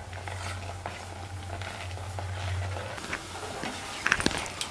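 Silicone spatula stirring and scraping a thick, stiffening milk-powder burfi mixture around a nonstick pan, soft and quiet, with a few sharper taps against the pan in the last second and a half. A low steady hum runs under the first three seconds.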